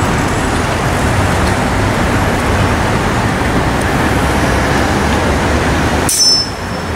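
Steady city traffic noise: the running of idling and passing cars and motorcycles. About six seconds in, a short sharp high-pitched click, after which the noise drops a little.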